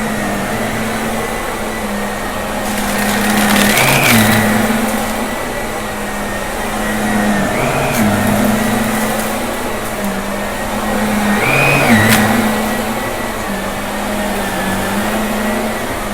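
Shark vacuum cleaner running steadily with a motor whine. Its pitch and loudness swell and dip about every four seconds as it is worked back and forth, with bursts of crackling from debris being picked up during the mess test.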